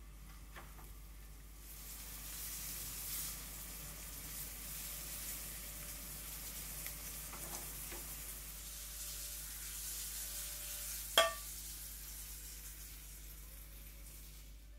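Flour-dusted salmon pieces sizzling as they sear in salad oil in a frying pan. The sizzle picks up about two seconds in and eases near the end, with one sharp clink about eleven seconds in.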